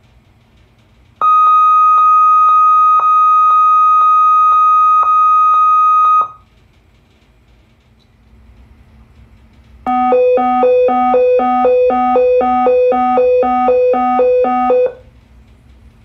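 Sensormatic anti-shoplifting security gate alarm tones: a steady high tone with a slight pulse about twice a second lasts about five seconds, then after a pause a lower two-note tone alternates about four notes a second for about five seconds.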